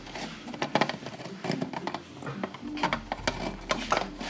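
Scissors snipping and fingers working a curtain pull cord: a run of small, irregular clicks and rustles as the thick join in the cord is trimmed down to fit through the track mechanism.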